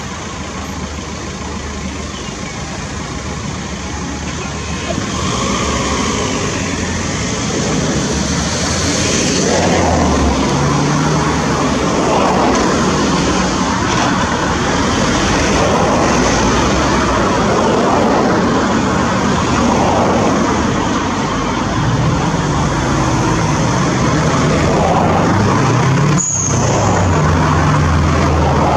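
Tracked excavator's diesel engine running and revving up and down as it works, with a dense mechanical rumble that grows louder about five seconds in.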